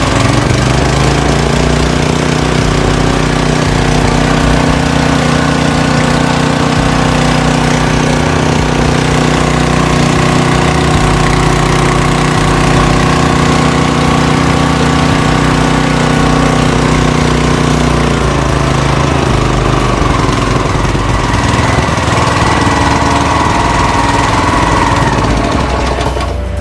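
Redfox RF 200 196 cc air-cooled single-cylinder OHV four-stroke petrol engine running steadily after a recoil start, its tone shifting about two-thirds of the way through.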